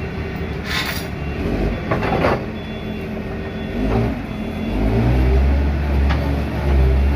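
An 18-inch two-roll rubber mill (hot mill) running with a heavy mechanical drone, with two short hissing rushes in the first two seconds; the low rumble grows louder about five seconds in.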